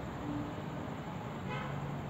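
Steady rumble of a distant train, with a short horn toot about one and a half seconds in.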